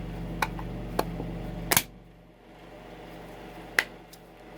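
A few sharp plastic clicks and taps from handling the small power-supply case, the loudest a little under two seconds in. A steady background hum cuts off at that loudest click.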